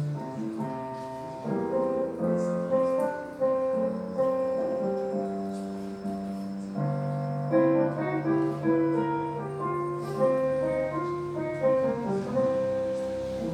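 A groovy tune on piano-like keyboard: chords under a melody, with notes struck in a steady rhythm.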